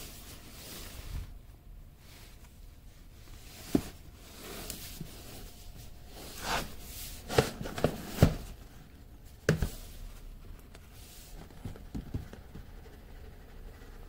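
A large cardboard box being handled: cardboard sliding and scraping, with several sharp knocks and taps, most of them bunched around the middle.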